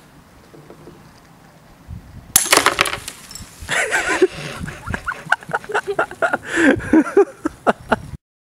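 Two glass beer bottles knocked together: one sharp, loud glass clink a little over two seconds in, then the struck bottle's beer foams up and gushes out, spattering and splashing with many small knocks and clinks.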